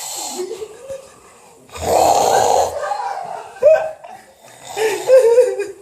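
A person snoring: two loud snores about three seconds apart, with a short sharp sound between them.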